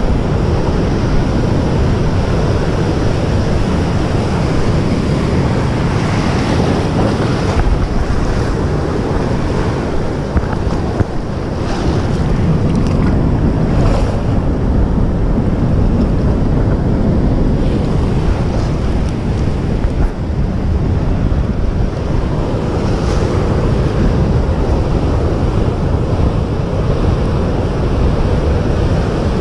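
Heavy ocean surf breaking and washing over rocks, with wind buffeting the microphone; a continuous loud rush.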